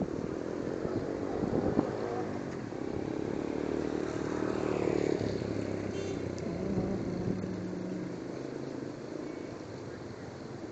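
Small motorcycles passing by on wet asphalt, their engines running steadily. The loudest stretch is in the first half.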